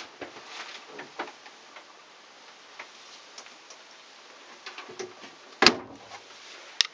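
Small clicks and knocks of a mirrored bathroom cabinet door being handled, with one loud knock a little over two-thirds through and a sharp click near the end.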